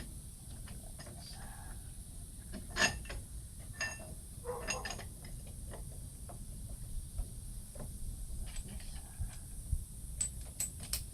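Metal parts of a bearing press tool, its bolt, washer and rings, clinking and tapping as they are fitted onto the wheel hub, with a dozen or so scattered clicks, a few of them ringing briefly.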